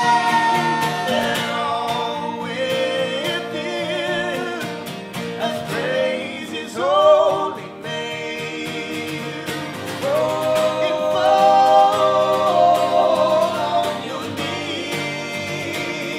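Music: men singing a melody over acoustic guitar accompaniment, opening with a loud held sung note.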